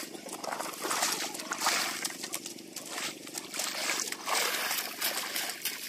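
Muddy water sloshing in a flooded paddy field as a long-handled wooden leveller is dragged through it, in repeated swishing surges.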